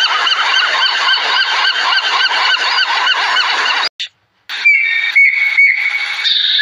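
A large flock of birds honking, many calls overlapping, typical of a goose flock. It cuts off abruptly about four seconds in. After a brief silence, a different high, whistle-like call repeats in short notes.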